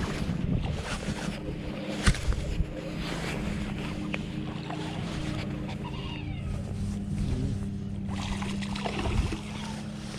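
A boat motor hums steadily over water noise, with a sharp knock about two seconds in.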